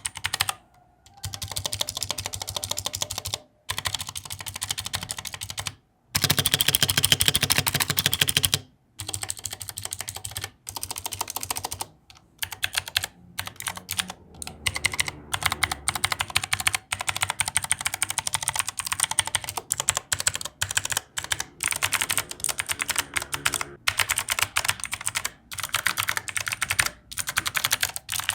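Typing sounds on a budget tenkeyless mechanical keyboard with ABS double-shot keycaps: fast runs of keystrokes in bursts of a few seconds each, with short pauses between them.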